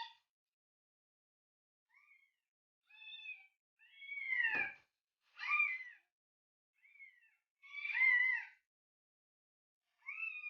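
Cat meowing: a series of about seven separate meows, some short and faint, the longest and loudest around the middle and near the end.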